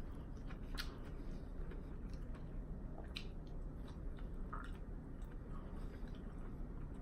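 A person chewing a mouthful of chicken lettuce wrap, with scattered short wet clicks and smacks of the mouth over a steady low background hum.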